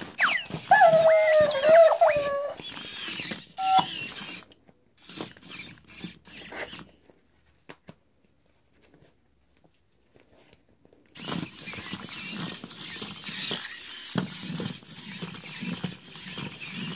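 A red WowWee Robopet robot dog: it opens with squeaky electronic sound effects that glide up and down, then its gear motors whir and its plastic feet clatter on the floor as it walks. It goes almost silent for a few seconds in the middle, then walks again with a steady clatter.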